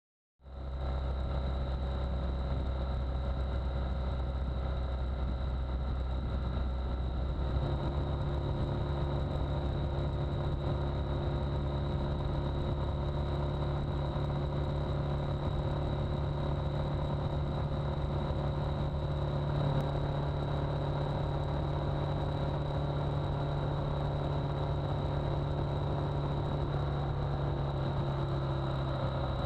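BMW R1200GS Adventure's boxer-twin engine running steadily. About seven seconds in, its low note steps up higher and holds there.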